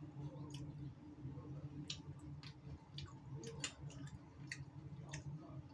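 A person chewing a mouthful of soup meat and vegetables: scattered faint clicks and smacks of eating, over a steady low hum.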